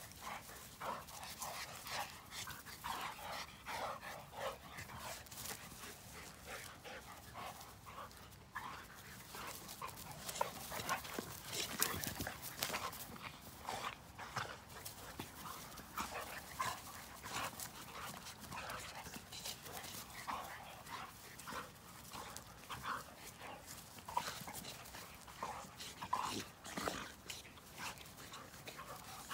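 A dog's short, repeated play noises while it wrestles and chases with a small pig, with scuffling and clicks from their tussle.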